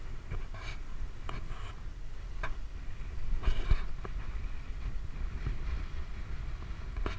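Wind rumbling on the camera microphone as the boat moves, with short splashy hisses and a few sharp knocks, the loudest burst a little after halfway.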